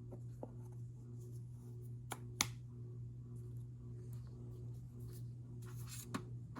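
Hands handling powder such as cornstarch: a few sharp clicks and one short crunchy squeeze near the end, over a steady low hum.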